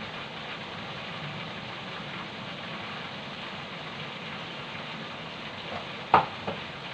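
Chicken pieces frying in hot oil in a wok, a steady sizzle at the half-cooked stage, with a sharp knock about six seconds in and a lighter one just after.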